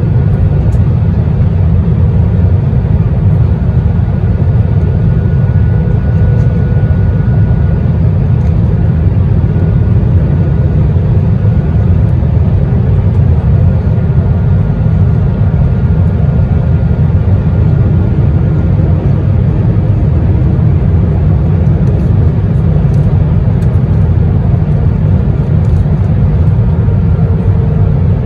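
Steady cabin roar inside an Airbus A321-131 in flight: its IAE V2500 turbofan engines and the airflow over the fuselage, a deep even rumble with a faint whine held steady above it.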